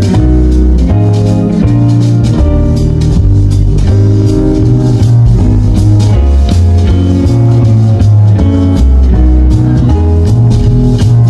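Loud background music: a bass line stepping from note to note under a steady drum beat.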